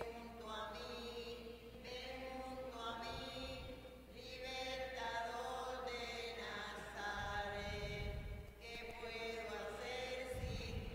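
A slow hymn, sung in long held notes that change pitch every second or two, during the preparation of the gifts at Mass. Low rumbles break in a few times, about three seconds in, in the second half and at the end.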